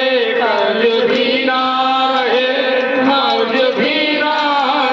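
A man singing a Hindu devotional bhajan in long, drawn-out, bending notes over a steady accompanying drone.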